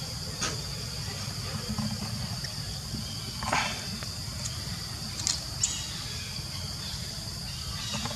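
Steady high-pitched insect drone, with a few short sharp sounds over it: one about half a second in, the loudest at about three and a half seconds, and two more just after five seconds.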